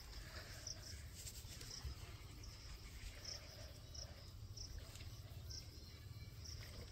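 Faint outdoor ambience: short high insect chirps repeating irregularly, about once a second, over a steady low rumble.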